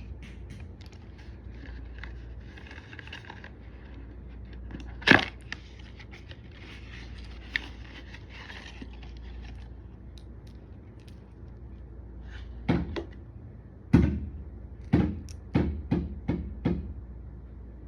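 Perfume packaging being handled during unboxing: soft rustling, one sharp knock about five seconds in, and a quick run of about seven knocks and taps near the end.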